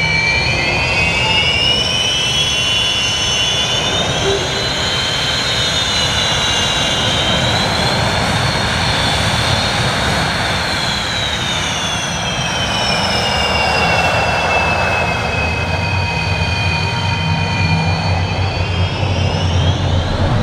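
The twin Lyulka AL-31F turbofans of a Sukhoi Su-27 Flanker running at taxi power: a high jet whine that rises over the first few seconds, sinks slowly in pitch from about halfway, then climbs sharply near the end. A low rumble beneath the whine grows stronger in the second half.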